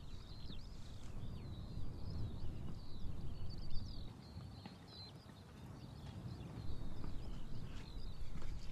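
Small bush birds twittering, with many short high chirps throughout, over occasional footsteps on a rocky trail and a low steady rumble.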